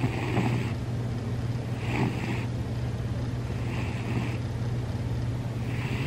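Sleeping cat snoring: four short, wheezy snoring breaths about two seconds apart over a steady low drone.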